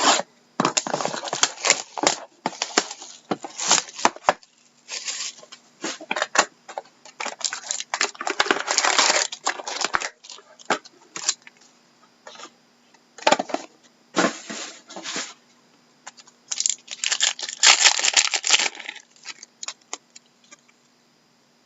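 Trading card box packaging and pack wrappers being torn open and crinkled by hand, in irregular bursts with sharp clicks and short pauses.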